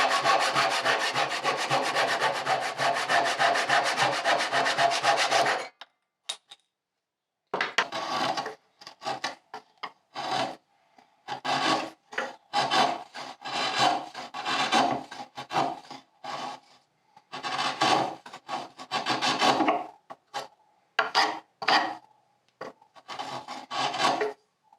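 Hand saw cutting hard mahogany-type wood, sawing recesses into a rail. A run of fast continuous strokes stops about five and a half seconds in; after a short pause come many shorter, separate strokes.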